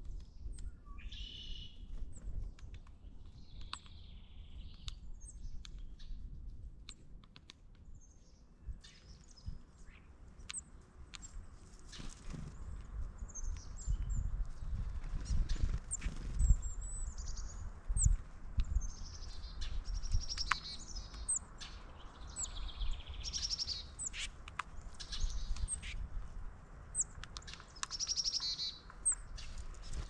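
Songbirds chirping and calling: many short, high notes and a few quick trills, over a low rumbling noise that is strongest around the middle.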